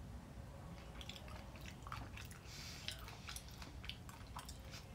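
Faint mouth sounds of someone chewing a white creme candy bar with sprinkles and popping candy, with scattered small clicks and crackles.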